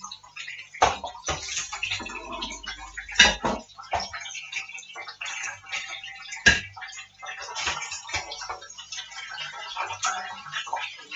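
Fish frying in a pan of oil, sizzling and crackling, with a series of sharp clinks and knocks of a utensil against the pan as fried pieces are lifted out and fresh ones put in.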